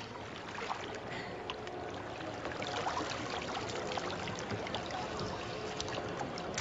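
Water sloshing and splashing in a shallow pool with divers moving in it, with many small splashes and clicks over a faint murmur of people.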